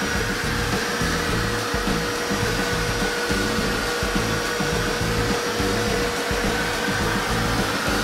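Canister vacuum cleaner running, a steady rush of air with a constant motor whine, under background music.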